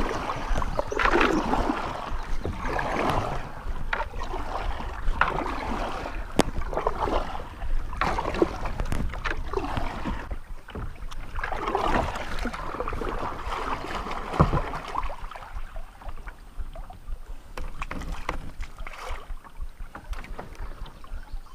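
Kayak paddle strokes through river water, a series of swishing splashes every couple of seconds, with scattered sharp clicks and knocks.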